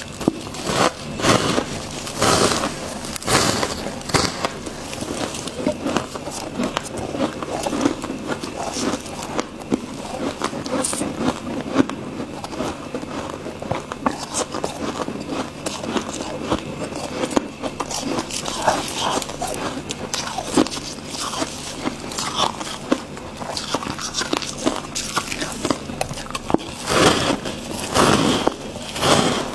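Freezer frost being bitten and chewed: a continuous run of crisp crunching cracks, louder in clusters near the start and near the end.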